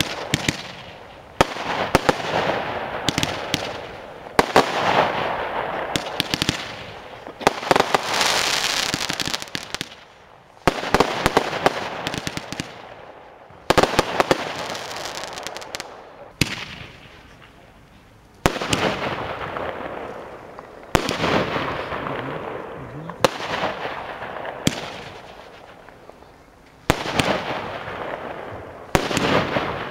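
Consumer fireworks battery (Amey "Thunder") firing shot after shot, about one every two seconds. Each shot is a sharp bang followed by a crackling tail that dies away over a second or two.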